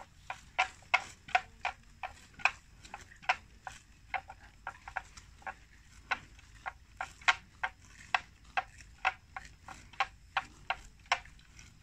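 Water buffalo grazing close by, tearing off mouthfuls of grass: a steady run of crisp ripping snaps, irregularly about two or three a second.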